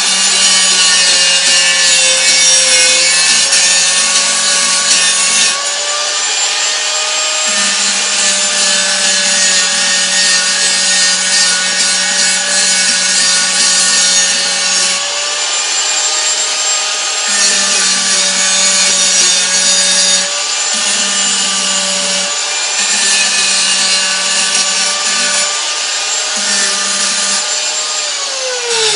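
Angle grinder running steadily and grinding around a rusted, snapped-off bolt in a steel bracket. It grinds in long stretches with brief let-ups, stripping rust and heating the bolt so it will break free of its threads.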